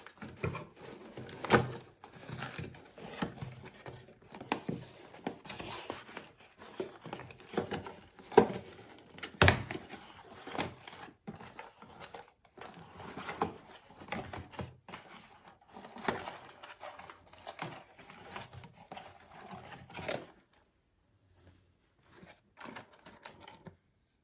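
Plastic and packaging crinkling with irregular sharp clicks and snaps from handling a clothing tag gun and its plastic fasteners. It stops about 20 seconds in, leaving a few faint clicks.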